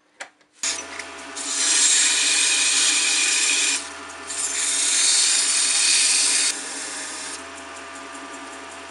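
Wood lathe switched on at turned-down speed, its motor humming steadily, while sandpaper is held against the spinning plum-wood blank. The sanding makes a loud rasping hiss in two long passes, then goes on more lightly.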